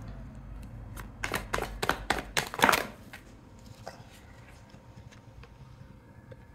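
A tarot deck being shuffled and handled: a quick run of card snaps and riffles between about one and three seconds in, loudest near the end of the run, then a few soft ticks.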